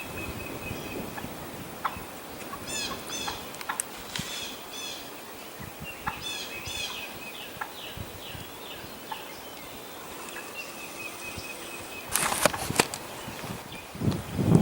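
Wild turkeys calling: quick runs of gobbling and yelping notes a few seconds in, with a thin steady whistle under them. Loud rustling bursts come near the end.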